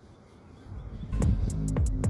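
Faint background for about a second, then electronic background music starts, with deep bass notes that slide down in pitch and sharp ticking percussion.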